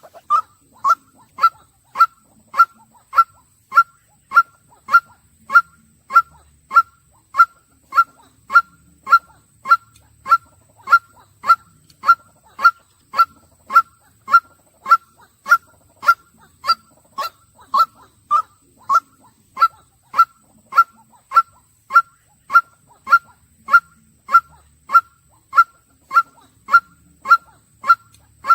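White-breasted waterhen calling: one short, sharp note repeated at a steady, even pace, a little under two calls a second.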